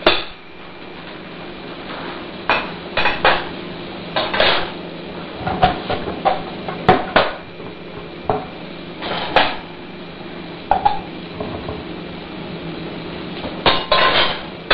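Kitchen clatter: dishes and utensils clinking and knocking on a counter, in scattered single strikes with a busier cluster near the end, over a steady low hum.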